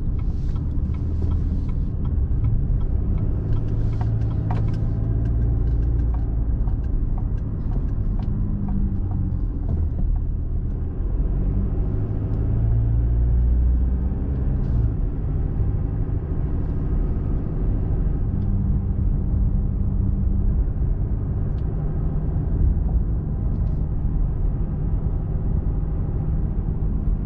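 Car driving along at steady speed, heard from inside the cabin: a continuous low rumble of engine and tyre noise, the engine note shifting up and down a little now and then.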